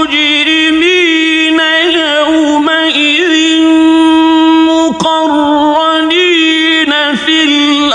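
A man chanting Quran recitation in the melodic mujawwad style: long held notes with winding melismatic ornaments, and short breaks about five and seven seconds in.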